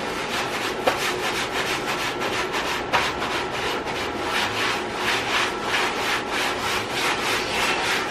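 Stiff-bristled long-handled scrub brush scrubbing a wet, soapy surface in quick back-and-forth strokes, about two to three a second, with a couple of sharp knocks along the way.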